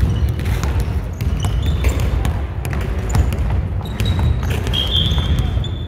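Basketball game on a hard court: the ball bouncing and players' running footsteps, with short high squeaks from about four seconds in.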